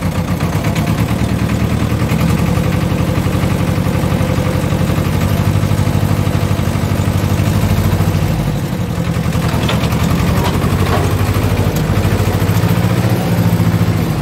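Ursus C-330 tractor's two-cylinder air-cooled diesel running steadily in third gear while pulling a manure spreader, heard from inside the cab. The engine's low, even firing pulses dip a little in level about two-thirds of the way through.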